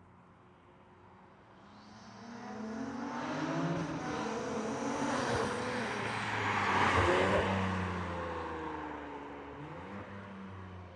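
BMW G80 M3's S58 twin-turbo inline-six, breathing through a titanium equal-length X-pipe catback exhaust with catless downpipes, accelerating past. It grows louder over several seconds with the pitch climbing, peaks about two thirds of the way in, then fades as the car moves away.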